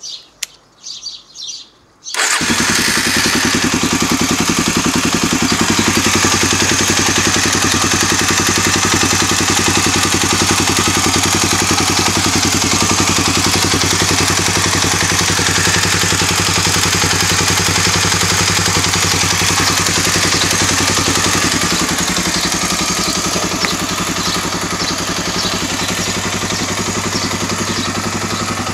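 Suzuki DR-Z250 single-cylinder four-stroke engine catching about two seconds in, then running steadily at idle. The owner calls the noise it makes bad but has no idea of its cause.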